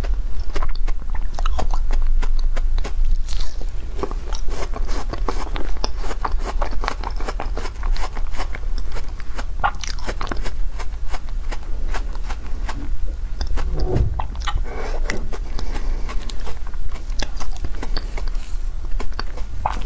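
Biting and chewing frozen foam ice: a dense, irregular run of small sharp crunches and crackles as the brittle frozen pieces break between the teeth.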